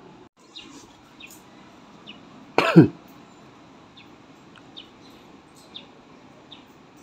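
A single short, loud cough-like sound from a person, falling in pitch, about two and a half seconds in. Faint, scattered short bird chirps run around it.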